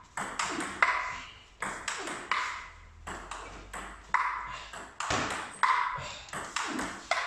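Table tennis ball striking bats and table back and forth in a chopping rally, one bat faced with long-pimpled rubber: a quick string of sharp ticks, each with a short ring, broken by a pause of about a second near the middle.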